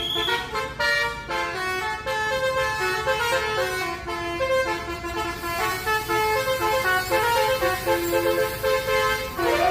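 Bus 'telolet' horn, a set of multi-tone air horns playing a quick stepping tune of short notes, over a low engine rumble.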